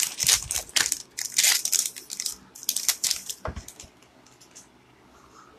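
Foil wrapper of a Magic: The Gathering Zendikar Rising booster pack being torn open and handled, crinkling and crackling rapidly; it stops about three and a half seconds in.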